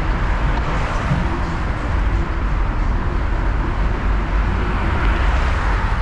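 Steady wind rumble on the microphone mixed with road traffic noise, heard while riding a bicycle along a road.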